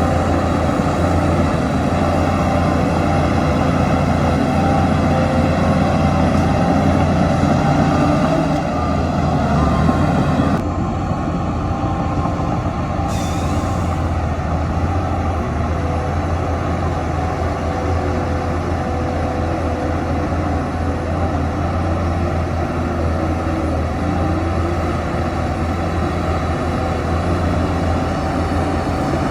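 Heavy diesel engines of a bulldozer and dump trucks running steadily, with a deep constant hum. The sound shifts abruptly about a third of the way in, and a brief hiss follows a few seconds later.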